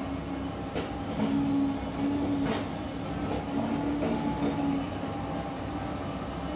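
Volvo crawler excavator's diesel engine and hydraulics running under load as it digs soil, with a humming tone that comes and goes. A few short knocks as the bucket scrapes through soil and stones, the sharpest about two and a half seconds in.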